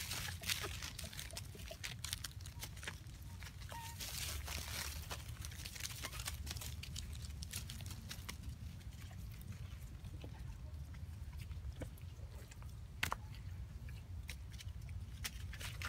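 Dry leaf litter rustling and crackling in many small, irregular crunches as feet move through it, with one sharper snap near the end, over a steady low rumble.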